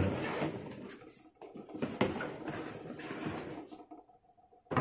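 Cardboard goggle box being closed and handled: a run of light rustles and small knocks as the flaps are folded shut, fading out near the end.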